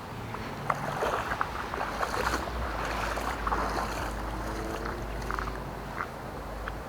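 Shallow floodwater splashing and sloshing in irregular bursts, busiest in the first half, over a steady low rumble.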